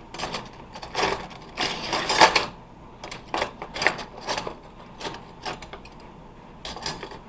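Metal cutlery clinking as knives, forks and spoons are put into a drawer organizer tray: a burst of clattering about two seconds in, then scattered single clinks.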